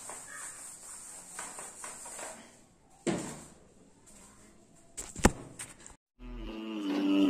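A duster wiping a whiteboard in faint, quick strokes for the first couple of seconds. A thump follows about three seconds in, then a few sharp clicks around five seconds, and an outro tune fades in during the last second.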